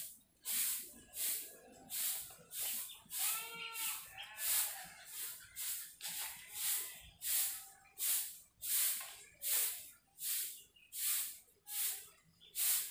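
Pencil scratching on paper in short strokes, about one or two a second, as letters are written out by hand.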